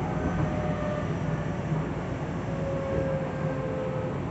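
Tobu 9050 series electric commuter train running, heard from inside the passenger car: a steady rumble of wheels on rail with faint whining tones above it.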